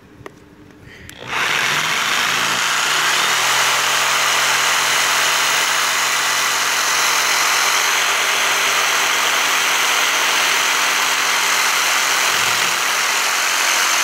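Black & Decker jigsaw starting about a second in, then running steadily as its blade cuts through a wooden board.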